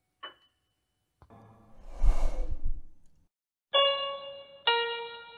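A breathy whoosh swells to a deep rumbling peak about two seconds in and fades out. About a second later a piano starts playing, one note or chord roughly every second.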